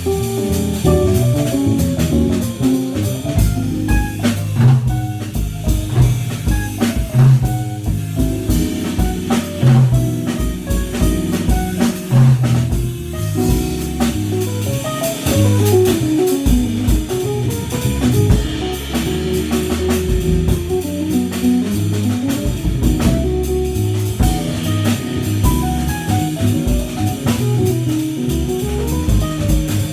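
Keyboard, bass and drum kit playing an instrumental tune together, with melodic runs that climb and fall over a steady drum groove.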